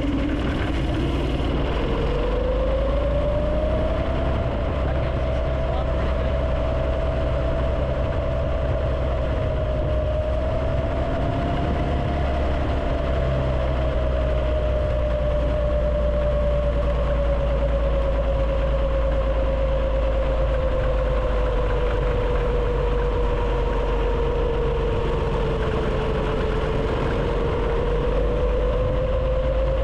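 A roughly 50-year-old small go-kart engine running under way, its pitch climbing over the first few seconds and then holding, easing down slowly and rising again near the end as the speed changes. A steady heavy low rumble lies under it, recorded by a GoPro.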